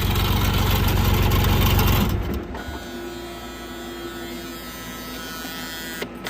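Rebuilt diesel engine of a Mustang skid steer running and shaking hard, which the owner puts down to worn motor mounts. It shuts off about two seconds in. After that, electric radiator fans wired straight to the battery keep running with a steady hum.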